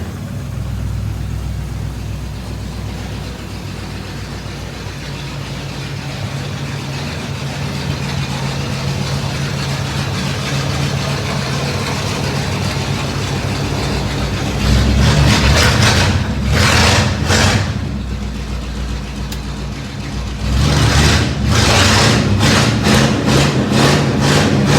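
Chevrolet Chevelle Malibu V8 with straight-pipe exhaust idling steadily. About fifteen seconds in it is revved in a few short throttle blips, drops back to idle, and near the end is blipped again in a quicker series of revs.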